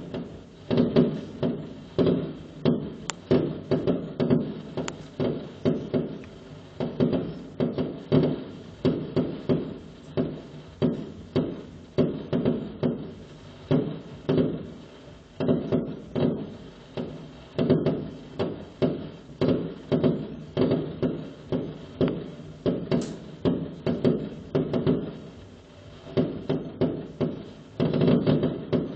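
Fireworks exploding overhead in a rapid, unbroken series of bangs, several a second, with short lulls between clusters.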